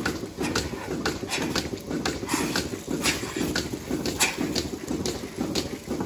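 Milking parlour sounds: cows' hooves shuffling and knocking on the metal grated platform, with irregular clicks and clanks from the milking clusters and hoses, over a steady low rumble of machinery.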